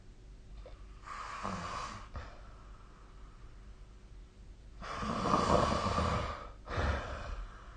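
A sleeping person snoring: a softer snoring breath about a second in, then a louder, longer snore from about five seconds in, followed at once by a short one.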